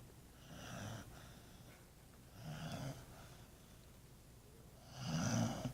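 A dog snoring in its sleep: three snores about two and a half seconds apart, the last one the loudest.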